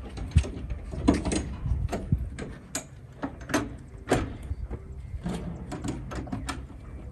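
Irregular metallic clicks and knocks from the rear door latch of an enclosed cargo trailer being worked by hand.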